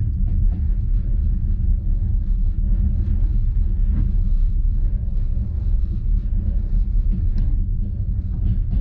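Steady low rumble of a passenger train carriage rolling along the track, heard from inside the car at the window, with a couple of faint clicks.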